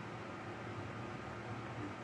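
Melag Vacuklav 31B steam autoclave running a test cycle: a steady machine hum with several even tones over a hiss, unchanging throughout.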